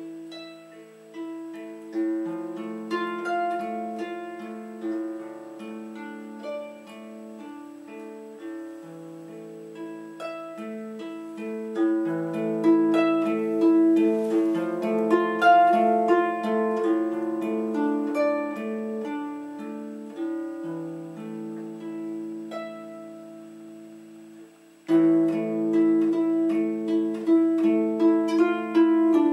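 Triplett lever harp played solo: a slow tune of plucked notes left to ring over lower bass notes, the playing growing suddenly louder near the end.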